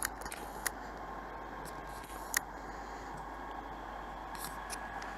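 Steady low outdoor noise with a few sharp clicks from the handheld camera being handled, the loudest about two and a half seconds in.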